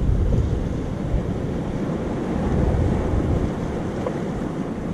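Wind buffeting the microphone in uneven gusts, with surf on the shore behind it.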